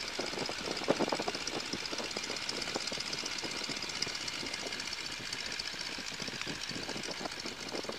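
Boeing Stearman biplane's radial engine running at low taxi power, a steady, uneven run of rapid knocking firing pulses.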